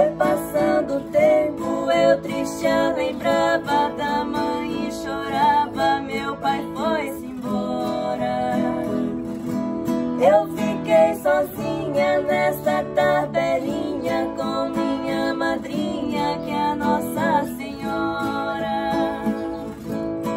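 Two female voices singing a guarânia in duet over a strummed ten-string viola caipira and acoustic guitar. Near the end the voices stop and the two instruments carry on alone.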